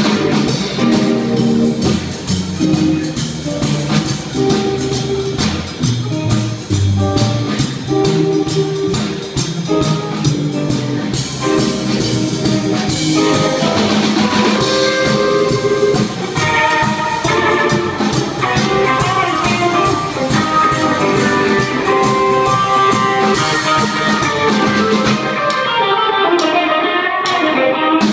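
Live rockabilly band playing an instrumental break, with the electric guitar taking the lead over upright double bass and drum kit. Near the end the lead line runs downward.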